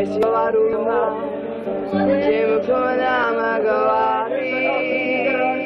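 Several voices singing a song together, holding long wavering notes.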